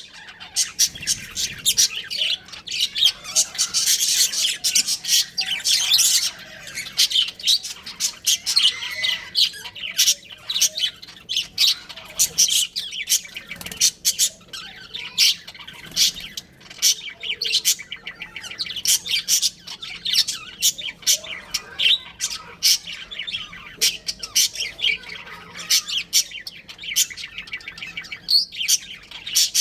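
Budgerigars chirping and squawking in a rapid, continuous chatter.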